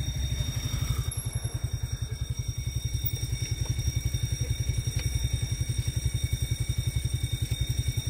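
Motorcycle engine idling close by: a steady, even, fast low throb that does not change.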